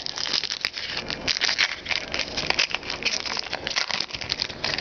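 Trading cards rustling and clicking against each other as a freshly opened pack of football cards is handled and rearranged in the hands, a steady crackling rustle.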